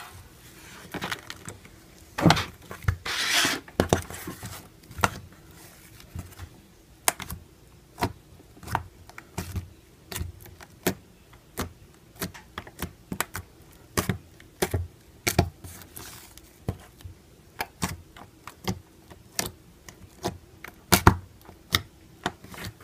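Glitter slime being poked, squeezed and stretched by hand, giving irregular sharp pops and clicks about one or two a second, with a longer squishy stretch a few seconds in.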